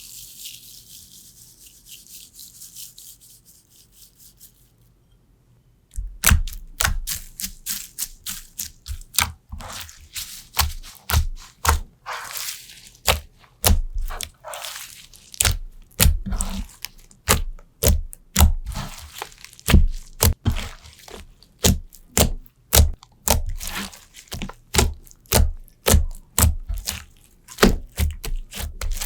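Slime being pressed and squeezed by hand, giving a run of sharp pops and clicks about one to two a second. The pops start about six seconds in, after a few seconds of soft high hissing.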